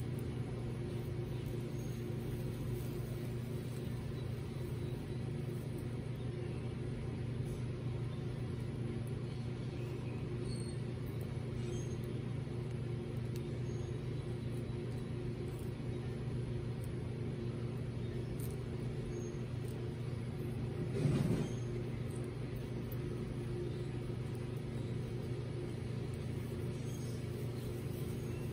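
Steady low mechanical hum, with a brief louder swell about two-thirds of the way through.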